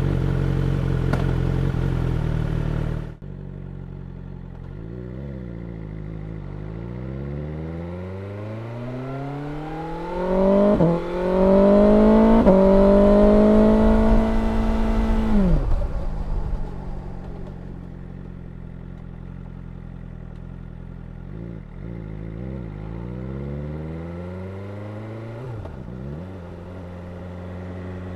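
BMW S1000R's inline-four engine and exhaust: after a loud steady noise cuts off about three seconds in, the engine pulls up through the gears with a rising pitch and quick breaks at each upshift, holds high for a few seconds, then the note falls away as the bike brakes to a stop, ending in lower running with a few brief dips and rises in pitch.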